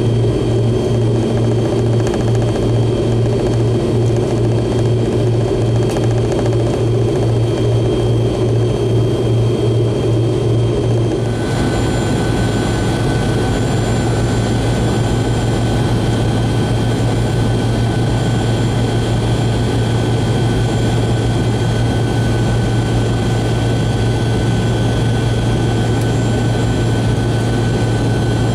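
Pratt & Whitney JT8D-17 engines of a DC-9-50 running at taxi power, heard from inside the cabin: a loud, steady low hum with a pulsing beat and a rumble. About eleven seconds in, the sound changes abruptly to a smoother hum with a thin, steady high whine.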